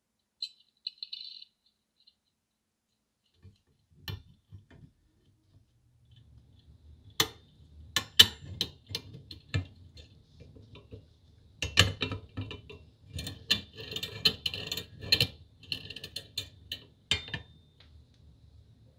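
Metal parts of a vintage pencil sharpener clicking and clinking as its nickel-plated crank and cutter assembly is fitted into the cast frame by hand. Sharp clicks and taps with a light metallic ring start about four seconds in and come in two busy clusters in the second half.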